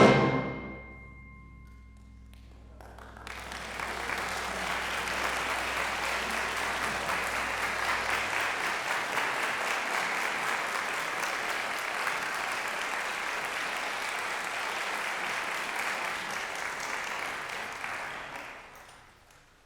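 The last chord of a concert band rings out and dies away in the hall. Audience applause starts about three seconds in, goes on steadily for some fifteen seconds, then fades out near the end.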